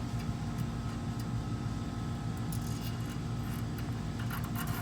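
A steady low mechanical hum from a running machine, with a few faint light clicks in the second half.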